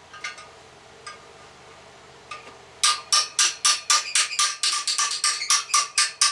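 Ratcheting 14mm wrench clicking as pressure plate bolts are backed out: a few single clicks, then from about three seconds in a steady run of about five sharp metallic clicks a second.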